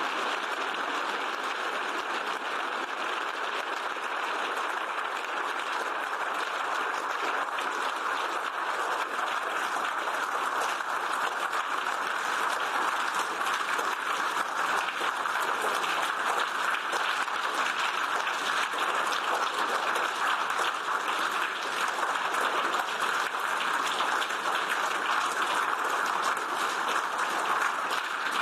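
A large assembly applauding steadily in a long standing ovation, many hands clapping at once. It grows slightly louder toward the end.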